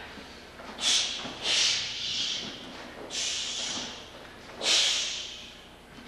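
A karate practitioner's sharp, forceful hissing exhalations through the teeth, about four in five seconds, each timed with a strike or kick of a block–punch–kick combination.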